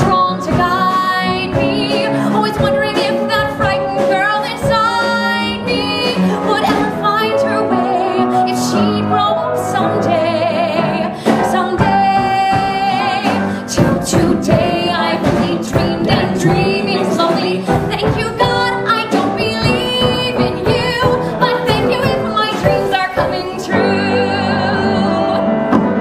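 A woman singing a musical-theatre song with vibrato over instrumental accompaniment.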